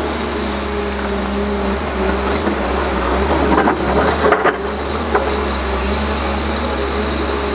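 Hyundai 320LC-9 crawler excavator's diesel engine running under load while it digs, with a steady drone and a hydraulic whine that shifts in pitch as the arm and bucket move. About halfway through there are a few knocks and scrapes, as stones grind in the bucket.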